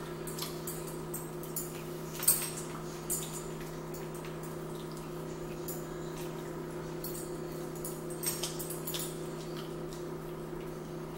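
Eating at a table: scattered small clicks and taps of chewing and handling food, the loudest a little over two seconds in, over a steady low hum.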